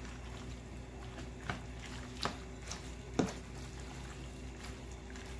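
Slotted spoon stirring shrimp pasta in a thick creamy pesto sauce in a pan, with a few sharp clicks of the spoon knocking the pan, over a steady low hum.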